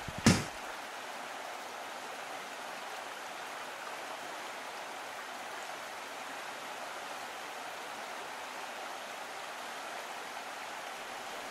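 A stream running steadily, with one sharp click about a third of a second in.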